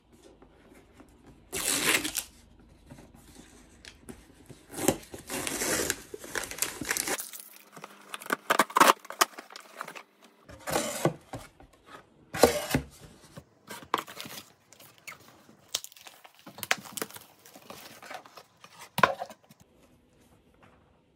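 White paper gift box being torn open by hand, in repeated bursts of ripping and crinkling paper a second or two apart.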